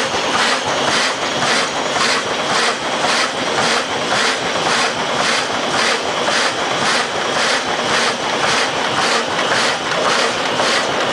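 Automatic roll-to-sheet paper cutting machine running at speed, a steady mechanical clatter with a sharp clack about three times a second as its transverse cutter chops the paper web into sheets.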